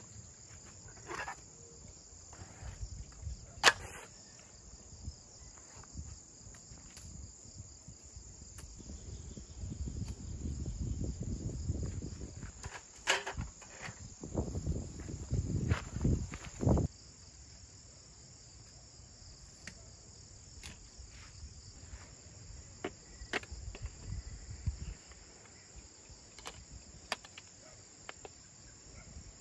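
Crickets and other insects chirring steadily throughout, with scattered clicks and knocks from a folding aluminium camp table being unfolded and set up, and a low rumble of handling in the middle.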